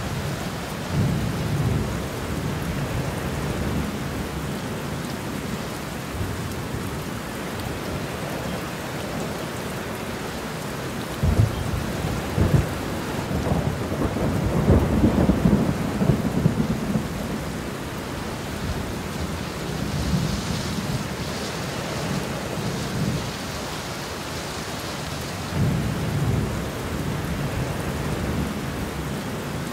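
Heavy rain falling steadily, with thunder. A sharp thunderclap comes about eleven seconds in and is followed by a long rumble, with lower rumbles of thunder near the start and again twice toward the end.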